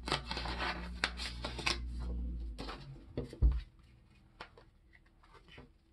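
A folded paper trading-card pack being unwrapped: paper rustling and crinkling with small crackles for about three and a half seconds, ending in a thump. After that come a few faint taps as the cards are handled.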